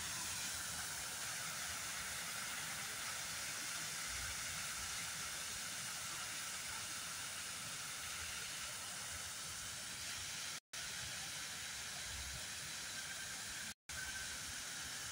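Steady, even hiss, with two brief drops to complete silence near the end.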